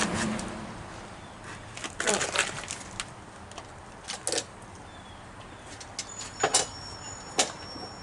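A handful of separate knocks and clunks from a wooden form board being handled and set in place against a wall.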